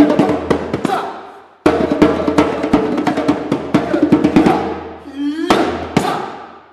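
Djembe played by hand in fast, dense flurries of strikes, in two runs broken by a short pause, with the player's voice chanting along. A rising vocal glide comes about five seconds in, followed by two hard strikes that ring out in a reverberant hall.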